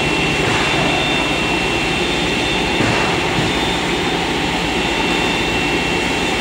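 PS foam sheet extrusion line running: a steady din of machinery and blowing air with one constant high whine.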